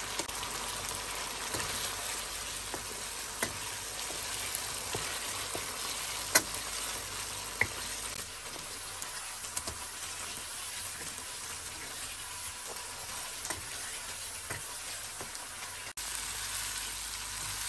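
Potatoes and green chillies in tomato masala sizzling in a nonstick karahi as a wooden spoon stirs them, with a steady frying hiss and now and then a light knock of the spoon against the pan.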